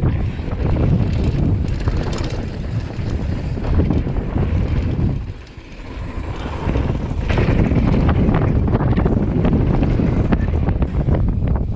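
Wind buffeting a chest-mounted GoPro at speed over the rumble and rattle of a Commencal Meta HT hardtail mountain bike's tyres and frame on a dry dirt trail. The noise drops away briefly about five seconds in, then comes back.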